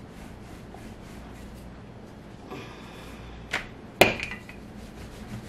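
Wooden rolling pin rolling out biscuit dough on a floured pastry mat, mostly quiet. There is a small sharp knock about three and a half seconds in, and a louder knock with a brief ring about four seconds in.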